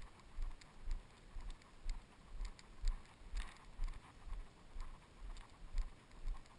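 Footsteps walking along a dirt trail at a steady pace, about two steps a second, each step a soft thump with a small scuff of grit, and one louder scuff a little past halfway.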